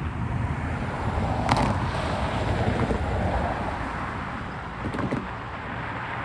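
Freight train rolling past: a steady low rumble of intermodal stack cars on the rails, with a sharp metallic clank about a second and a half in and another about five seconds in.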